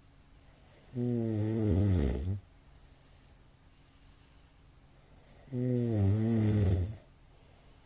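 A man snoring in his sleep: two loud snores, each about a second and a half long and about four and a half seconds apart, with faint breathing between them.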